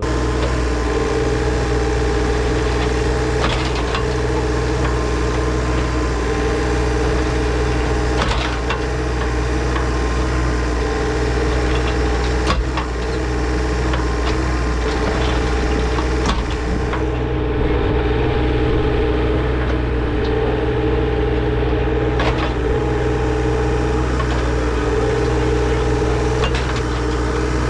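The engine of a compact earthmoving machine runs at a steady speed under work. A handful of sharp knocks and scrapes are spread through it.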